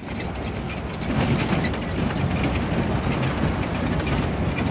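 A bus running, heard as a steady low rumble with faint rattles and clicks.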